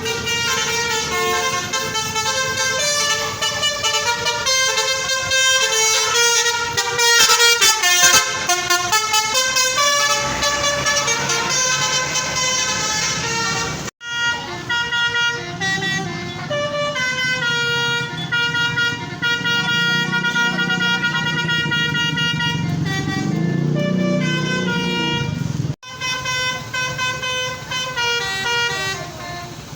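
Indonesian bus 'telolet basuri' musical air horns playing melodies in quick stepping notes, several horn tunes one after another, broken by two abrupt cuts. A low rumble runs under the later tunes.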